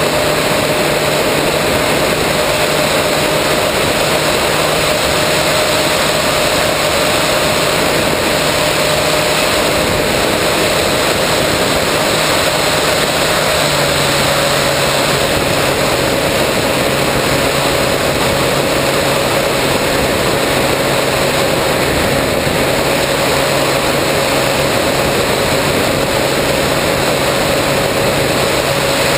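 Electric motor and propeller of a 3 m RC plane running steadily in flight, heard from a camera mounted on board, under a loud rush of wind. The motor's pitch steps down slightly about halfway through.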